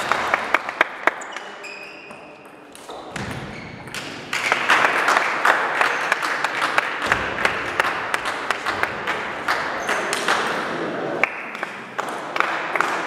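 Celluloid-type table tennis ball struck by bats and bouncing on the table in a quick rally that ends about a second in. Then steady hall noise with scattered light ball taps.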